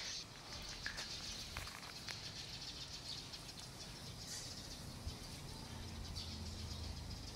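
Faint outdoor ambience with occasional distant bird chirps, and a faint low hum in the second half.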